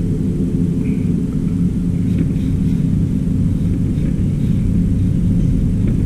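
A steady low machine hum with a rumble beneath it, unchanging throughout, with a few faint light clicks over it in the middle.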